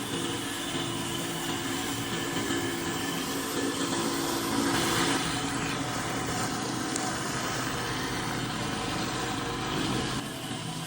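Pressure washer engine running steadily under the hiss of its water spray. The spray gets louder for a moment about halfway through, and the sound drops a little near the end.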